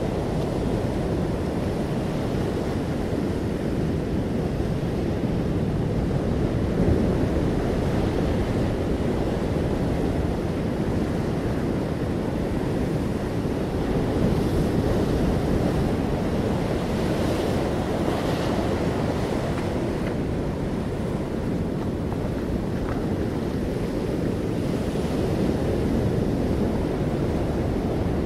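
Steady low rushing noise, rising and falling a little in loudness now and then.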